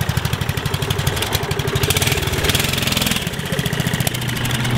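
Minibike's small engine running with a rapid, even firing beat as the bike rides off across the grass.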